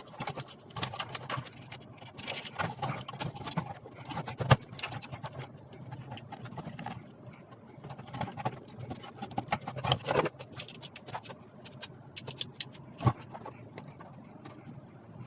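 Irregular clicking and knocking over a low hum, with a sharp knock about four and a half seconds in and another near thirteen seconds.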